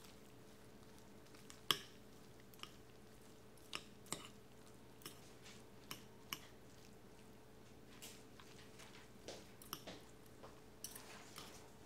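Two metal forks shredding tender, falling-apart cooked chicken on a plate: faint, irregular soft squishes and scrapes, with occasional sharp clicks of the tines against the plate, the loudest one about two seconds in.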